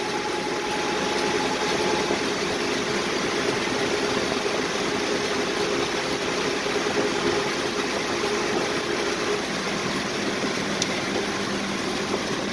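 Engine and road noise inside the cab of a 1941 Dodge WC truck powered by a 5.7 Hemi V8, cruising steadily on a paved road. About nine and a half seconds in, the engine note drops lower.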